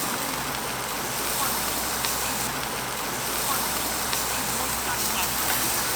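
Steady rushing of flowing water, an even wash of noise with no change in level.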